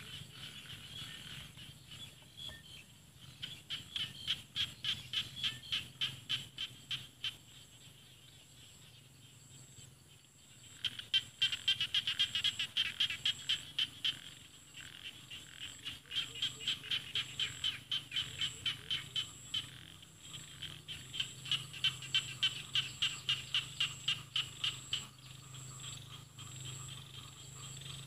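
Small rice-paddy frogs (khiat ja na) calling in long, rapid trains of clicking notes. The calls come in several bouts with short pauses between them, over a steady low hum.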